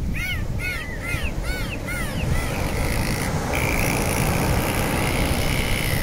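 Dolphins whistling underwater: a run of short rising-and-falling whistles, about two a second, fading out about two and a half seconds in, followed by a flatter, steadier whistle. Constant rushing water noise runs underneath.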